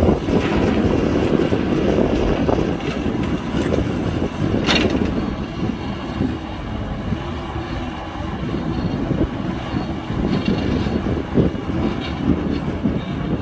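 Excavator diesel engine running steadily, with one short sharp clank a little under five seconds in.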